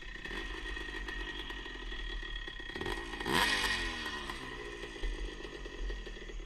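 1977 Honda CR125 Elsinore's two-stroke single running on its newly installed HPI ignition, blipped once about three seconds in, the revs rising sharply and dropping back to a steady run.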